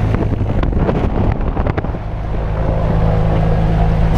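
Single-engine light aircraft's propeller engine running steadily, with propeller wash buffeting the microphone. Several knocks in the first two seconds come from people climbing aboard through the cabin door.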